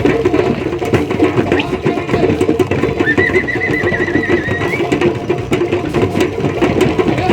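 Live drumming with a crowd, loud and busy with rapid strikes. About three seconds in, a high warbling tone cuts through for about two seconds, rising at its end.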